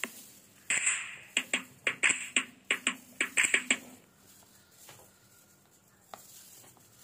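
Plastic-gloved hands moving chopped bell peppers between ceramic plates: a quick run of light clicks and scrapes with bursts of plastic rustle, dying down about four seconds in.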